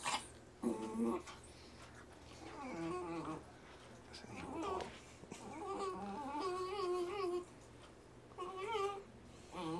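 Small dog growling over its bowl of ice cream in several wavering, drawn-out bouts, the longest lasting about a second and a half: food guarding.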